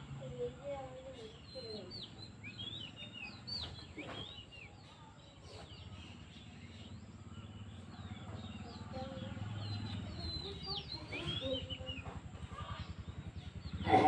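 Small birds chirping and twittering in many short, high calls, over a low drone that grows louder in the second half.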